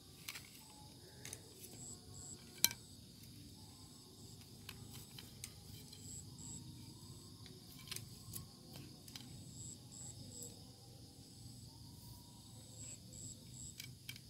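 Faint evening insect chorus: crickets chirping in short high pulses, in twos and threes over a steady high hum. Scattered small clicks and taps come from handling the fishing pole and line, with one sharp click about three seconds in.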